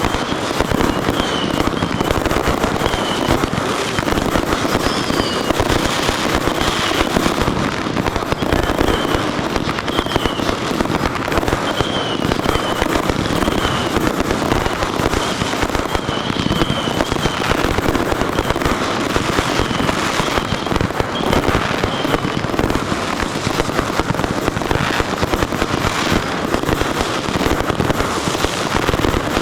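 A dense, continuous fireworks barrage: a constant rattle of bursts and crackle with no pauses. Short, wavering high whistling tones sound over it again and again for the first two-thirds.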